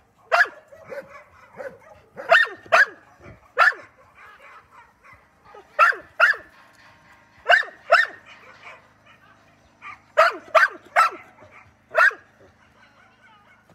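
Shelter dogs barking in short, sharp barks, mostly in pairs about half a second apart, with pauses of a second or two between them.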